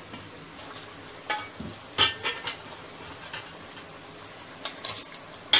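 Wooden spatula knocking against a cooking pot, a scattering of sharp knocks with the loudest about two seconds in, as chicken pieces are moved into masala, over a faint steady sizzle of frying.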